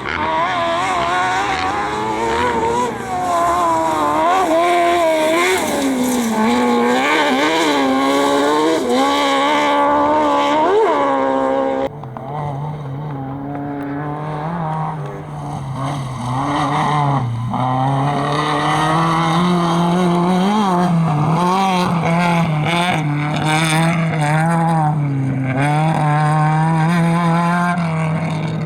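Competition engines being revved hard through gear changes on a dirt slalom course, the pitch rising and falling. About twelve seconds in, the sound cuts to a different engine with a lower, steadier note that wavers up and down.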